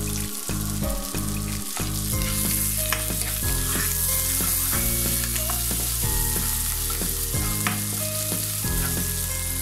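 Sliced onions sizzling in hot oil and ghee in a nonstick wok, stirred with a spatula that scrapes and taps against the pan many times.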